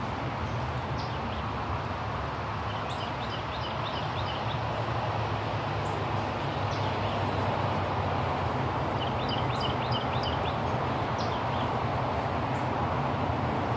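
A small bird gives two short runs of quick, high chirps, about three seconds in and again around nine seconds, with a few single high notes between, over a steady rushing background noise.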